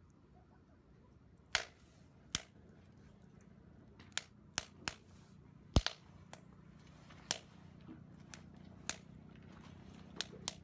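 A series of sharp, irregular clicks and pops, about a dozen, scattered unevenly, the loudest a little before the middle, over a faint steady low hum.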